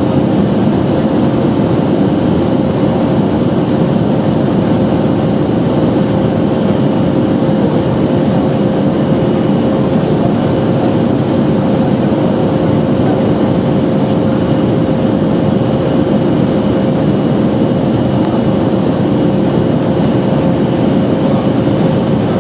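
Boeing 737-300's CFM56 jet engines running at a steady power: a dense, even rush with a constant whine held on one pitch, unchanging throughout.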